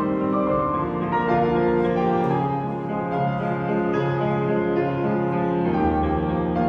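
Piano trio of piano, violin and cello playing classical music, the piano joined by long held string notes; a low bass line comes in about six seconds in.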